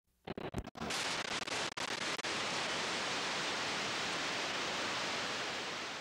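Steady hiss of videotape static, starting with a few crackling clicks and dropouts in the first second, then running evenly and easing slightly near the end.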